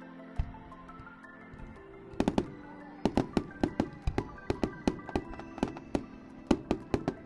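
Fireworks display going off: a rapid, irregular string of sharp bangs and cracks that starts about two seconds in, several a second. Background music with held melodic notes plays throughout.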